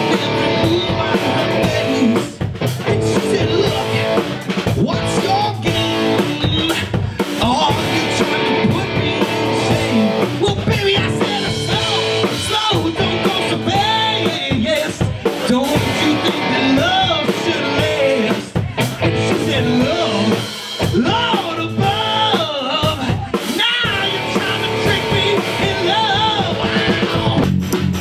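Live rock band playing through a PA in a small bar: electric guitar, bass guitar and drum kit, with a lead vocal over the top.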